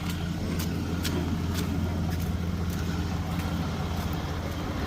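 A vehicle engine idling steadily, with a few scattered light clicks on top.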